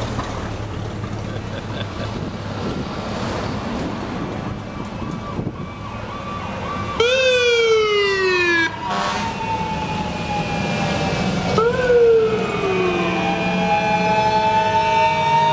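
Fire truck engines rumbling as parade apparatus drive past, then, about halfway through, fire truck sirens start: two sharp falling wails a few seconds apart over a siren that winds slowly upward and keeps sounding.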